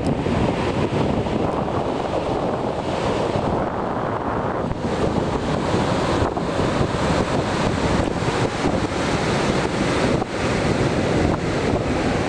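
Wind buffeting the microphone over steady breaking surf, a continuous rushing noise with gusty flutter.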